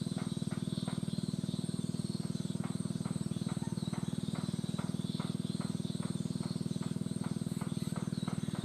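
Lovebird chick begging during hand-feeding: a steady low buzzing with short rhythmic pulses about three times a second.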